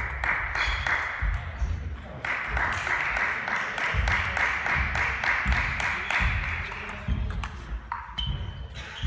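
Table tennis balls clicking irregularly off bats and tables from several tables in play at once, with voices chattering in the background.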